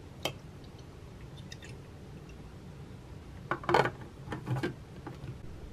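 A clear plastic tumbler handled and set down on a wooden desk: a short cluster of light knocks and clatter about three and a half seconds in, and a smaller one about a second later, with a single click near the start.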